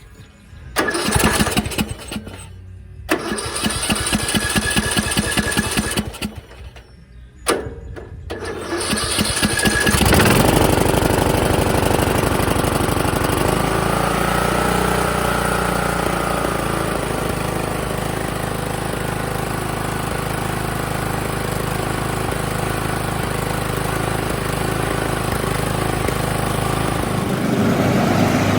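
A riding mower's 17.5 hp engine cranked by its electric starter in several short tries on its first start after a carburetor swap, then catching about ten seconds in and running steadily with the choke on.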